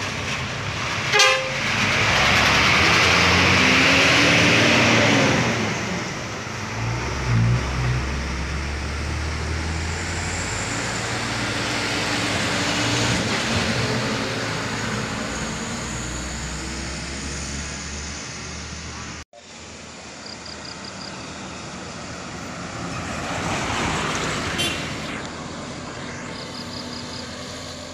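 Buses and trucks driving past one after another, their diesel engines running under load, with a horn sounding. The loudest pass comes a couple of seconds in and lasts about three seconds; the sound cuts off abruptly about two-thirds of the way through, and another vehicle passes near the end.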